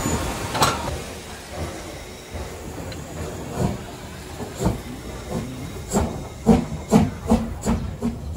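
Steam locomotive hissing steam, then chuffing as it pulls away, its exhaust beats coming faster and faster.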